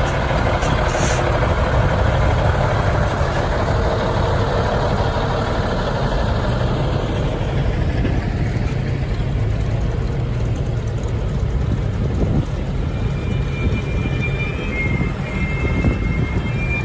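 Heavy six-wheeled military truck's engine running as it drives slowly past. The rumble is loudest over the first several seconds and eases off as it moves away, and a smaller military jeep's engine comes by near the end.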